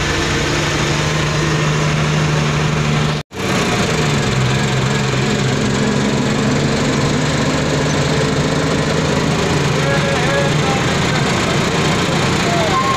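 Truck's diesel engine running steadily while the truck is driven, heard inside the cab among loud rattling and wind noise from the open windows. The sound drops out for an instant about three seconds in.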